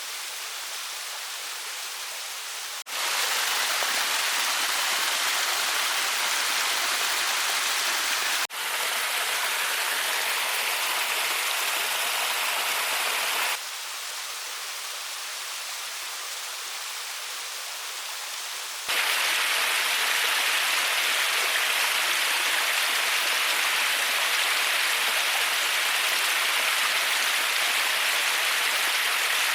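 Steady rushing noise like running water, with no distinct clicks or tones. It jumps abruptly between a softer and a louder level about 3, 8.5, 13.5 and 19 seconds in.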